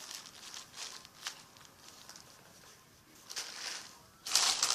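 Plastic bag rustling and crinkling in short bursts as squishy toys are handled and pulled out of it, loudest near the end.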